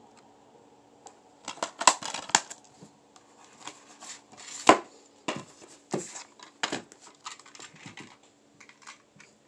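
Plastic DVD cases and small toy cars being handled and set down: a quick cluster of clicks and clatters, one sharp snap near the middle that is the loudest sound, then several scattered knocks.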